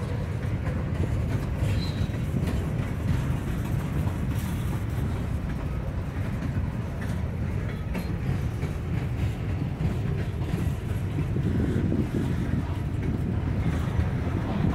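A freight train rolling past with a steady low rumble.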